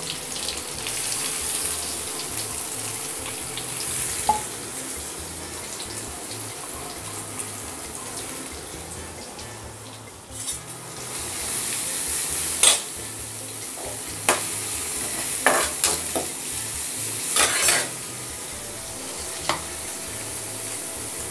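Sliced onions and curry leaves sizzling in hot oil in an aluminium kadai at the tempering stage. A steel slotted spoon stirs and knocks against the pan several times in the second half.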